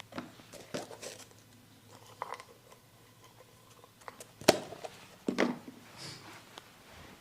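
Barber's hands working on a person's head and neck: irregular sharp clicks, taps and crackles, with one much louder crack about four and a half seconds in and a crackly cluster just after.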